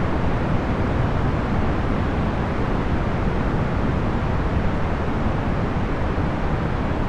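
Procedurally generated box fan noise: a steady, even rush of air, heaviest in the low and middle range, with no hum or changes.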